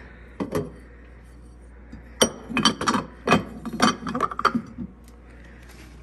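Ceramic and glass household items knocking and clinking against each other and a hard surface as they are picked up and put down: a couple of light clicks, then a quick run of sharp knocks and clinks in the middle, one ringing briefly.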